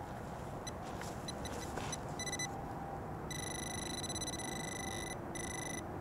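Metal detector's electronic beep: a few short, quickening beeps, then a steady high tone from about three seconds in, broken twice briefly near the end. It signals metal right at the probed spot.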